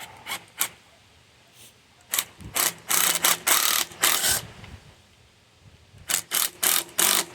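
Metal tools clattering and clicking against the compressor's fittings as a bolt is put in and tightened. There are a few sharp clicks at first, a dense run of short rasping strokes in the middle, then a quick series of about five clicks near the end.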